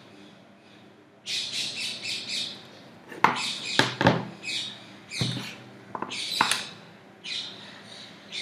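Birds chirping: a quick run of short, repeated high calls that starts a little over a second in, with a few sharp, louder notes in the middle.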